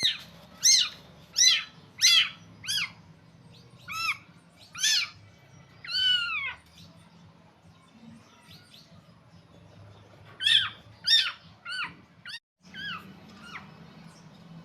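Small kittens mewing over and over in short, high-pitched mews, with one longer, wavering mew about six seconds in and a few seconds' pause before the mewing starts again.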